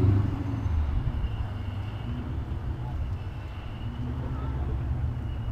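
Ford Mustang GT's V8 engine rumbling at low speed while the car creeps and maneuvers into a parking spot. It is loudest right at the start, then settles to a steady low rumble.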